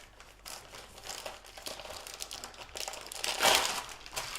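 Plastic bacon packaging crinkling as it is handled, with an irregular crackle and a louder burst of crinkling about three and a half seconds in.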